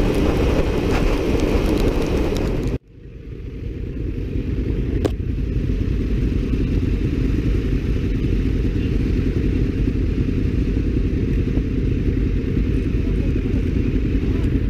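Loud wind and wet-road spray noise from a Yamaha sport bike at highway speed. This breaks off suddenly about three seconds in, and the bike's engine then idles at a standstill with a steady low rumble.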